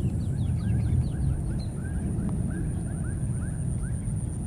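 A rapid run of short, high, falling chirps from an animal, several a second, that stops after about three seconds. Underneath is a steady low rumble, with a thin, constant high-pitched hum above it.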